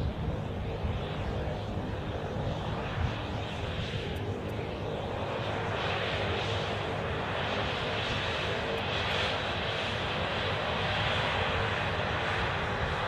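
MQ-9 Reaper's turboprop engine running, a steady propeller-and-turbine drone with a few held tones, growing louder and brighter about halfway through.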